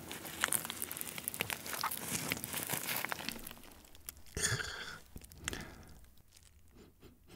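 A gloved hand picks up a piece of sauce-coated fried chicken, making dense crinkling and crackling for about four seconds. Then comes a short sniff about halfway through and a fainter one soon after as the chicken is smelled, and it goes nearly quiet near the end.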